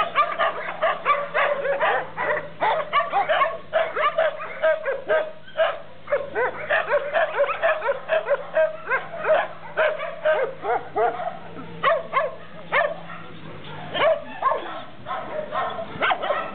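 Many kennelled dogs barking and yelping at once: a dense, unbroken run of short overlapping barks.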